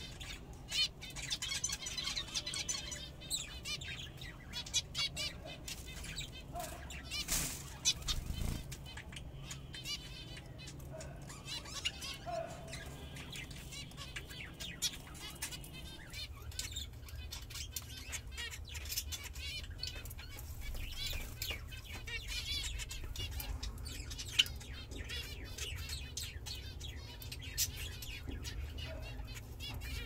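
Caged finches, zebra finches among them, chirping and twittering in many short, quick calls, with bursts of wing flutter, over a low steady hum.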